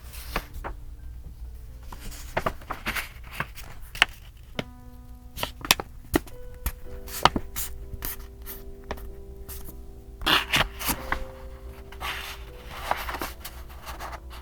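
Paper and stationery being handled for journal decorating: scattered taps and clicks, with bursts of paper rustling about ten seconds in and again near the end. Soft background music with held notes plays underneath.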